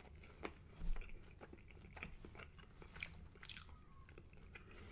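Close-miked chewing of soft, sticky spicy rice with melted cheese and egg: faint wet mouth clicks and smacks, a few of them sharper, about a second in and again around three seconds in.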